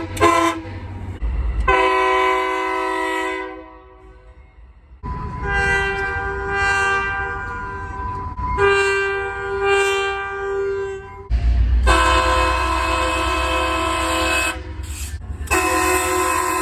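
Locomotive air horns sounding a chord in four long blasts, one after another, each lasting a few seconds. Under the last blast, which starts about eleven seconds in, the passing train rumbles deeply.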